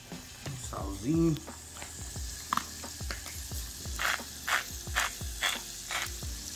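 Chopped onion sizzling quietly in a saucepan on an electric burner, with a hand spice grinder twisted over the pan in a run of short grinds about every half second, starting about four seconds in. A brief pitched sound about a second in.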